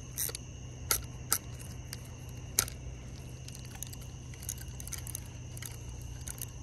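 A steady chorus of night insects, typical of crickets, with a low steady hum underneath. Four or five sharp clicks and knocks from gear being handled close to the microphone come in the first three seconds, the loudest about two and a half seconds in.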